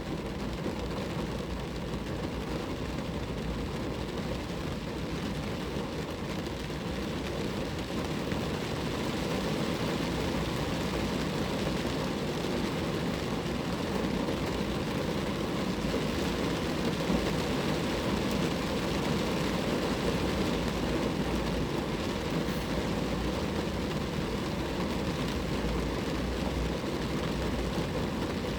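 Rain falling on a car, a steady dense noise that grows slightly louder about eight seconds in.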